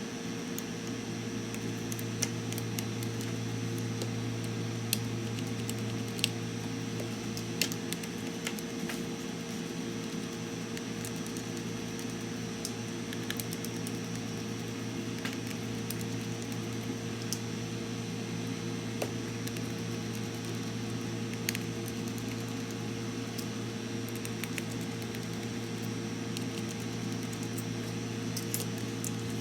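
A steady electrical hum with several evenly spaced overtones, with scattered small sharp clicks and taps of tools handling a laptop circuit board.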